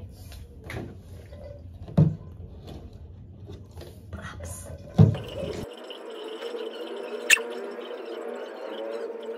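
A plastic bottle being handled on a tiled floor, with a few sharp knocks as it is set down, the loudest about 2 and 5 seconds in. About halfway through, the room sound cuts off and steady background music takes over.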